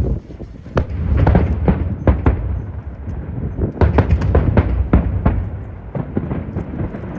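Aerial fireworks going off in rapid volleys: many sharp bangs over a deep rolling rumble, thickest about a second in and again around four to five seconds in.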